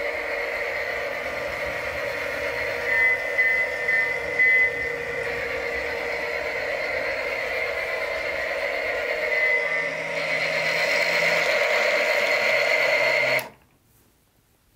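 Battery-powered Lionel John Deere toy train running around plastic track: a steady whir from its motor and wheels, with a few short high beeping tones about three to four and a half seconds in. The sound cuts off suddenly near the end.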